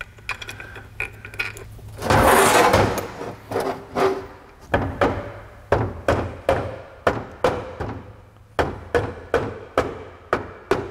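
Mallet tapping the aluminium case of an Eaton M62 Roots supercharger to seat its sections together: a run of sharp blows, about two to three a second, with a short pause a little past the middle. About two seconds in comes a loud noisy rush lasting about a second.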